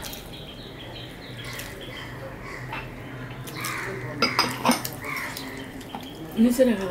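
Eating sounds of a rice-and-curry meal eaten by hand: fingers mixing rice on plates and light clinks of china plates and bowls, with a few sharp clicks of crockery about four seconds in.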